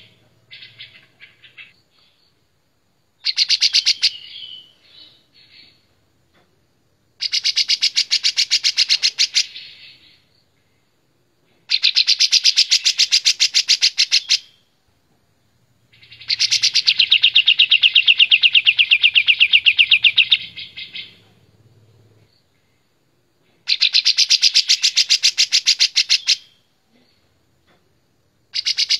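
Caged olive-winged bulbul (kapas tembak) singing loudly and clearly: phrases of rapid repeated notes, each two to five seconds long, come one after another with short pauses between them, about six in all, the longest in the middle.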